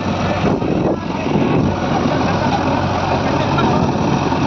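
Heavy diesel engine running steadily, a loud, even drone.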